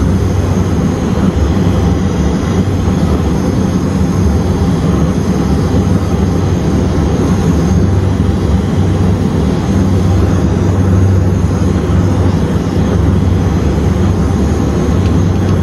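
Brazing torch flame burning with a steady rushing noise, heating the brazed copper joint of a liquid line solenoid valve to melt the braze and unsweat it.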